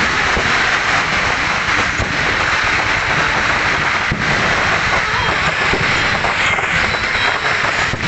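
Steady road noise of motorbikes, scooters and a van passing close by, an even rushing wash with no clear engine note.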